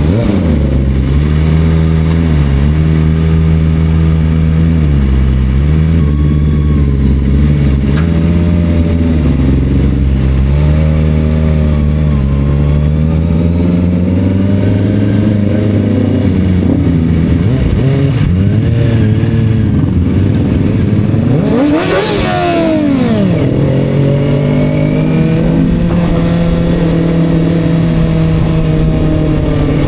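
Engine of a 250cc sport motorcycle running at a steady cruise, its pitch wavering slightly with the throttle. About two-thirds of the way through, the engine pitch sweeps sharply up and falls back.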